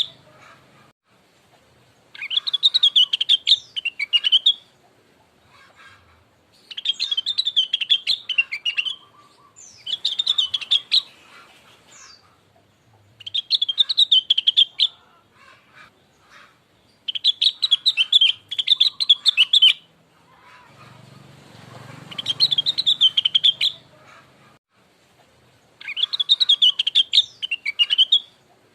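Rengganis (cucak wilis) bird singing: repeated warbling, chirping phrases about two seconds long with short pauses between them, seven phrases in all. It is a lure song meant to prompt a kept bird to answer.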